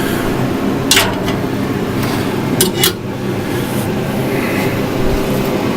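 A steady mechanical hum with a few sharp knocks, about one second in and twice close together near three seconds in.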